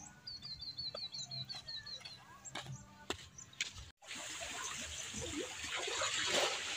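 A bird calls a quick run of about a dozen short, falling notes. About four seconds in, the sound switches to a steady rush of seawater washing over a rocky shore.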